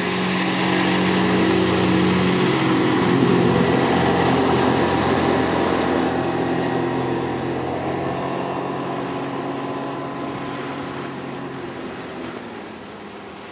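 Suzuki outboard motor on a Sibir 460 fiberglass motorboat running steadily at speed as the boat passes by, with a rushing hiss. It is loudest a few seconds in, then fades away.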